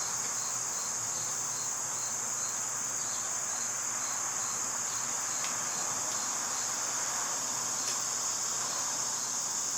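Crickets trilling steadily in a high-pitched chorus, with a fainter regular chirp pulsing about three to four times a second underneath.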